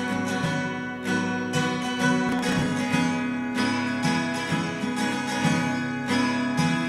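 Acoustic guitar strummed and picked in a steady rhythm of chords, an instrumental passage of a folk song with no voice.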